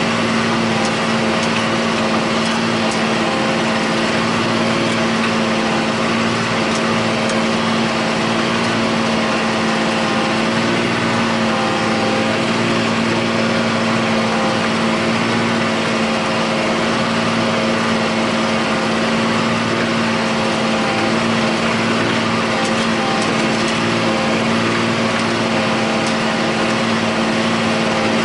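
John Deere 8100 tractor's six-cylinder diesel engine running steadily under load while pulling a disk ripper through the field, heard from inside the cab as an even drone with a strong steady hum.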